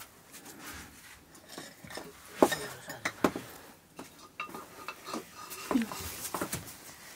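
A spoon stirring food in a cooking pot, knocking and scraping against its sides in a few short, sharp clinks, the loudest about two and a half seconds in.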